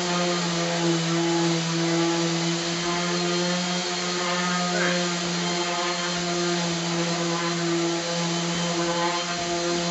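Steady hum of an electric motor running at constant speed in a workshop, holding one unchanging pitch.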